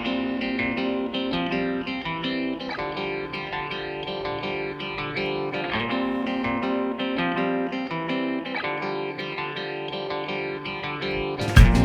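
Background music in a quieter passage of plucked, guitar-like notes with little bass. Just before the end, the full arrangement with heavy bass and regular drum-like hits comes back in.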